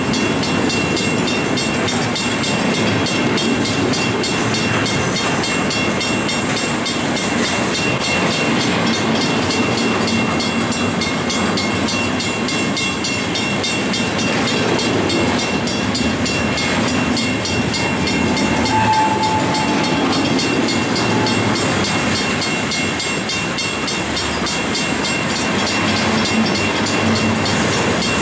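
Union Pacific double-stack intermodal freight train rolling past close by: a steady loud rumble and rattle of wheels on rail, with a thin, faint, steady high squeal over it.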